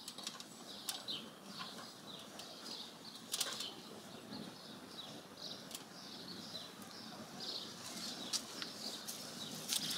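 Rustling and flapping of a sheepskin and a wool blanket being handled and tied onto an aluminium stepladder, with a few light knocks scattered through.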